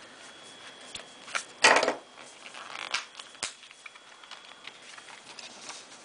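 A knife cutting open the sealed packaging of a trading-card box: scattered clicks and taps, with a short louder scrape or rip about a second and a half in.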